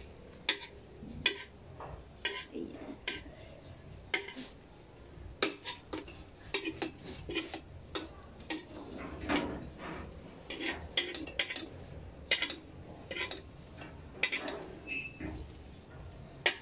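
Slotted metal spatula scraping and clinking against a steel frying pan in many irregular sharp strokes as it loosens and lifts a hotcake.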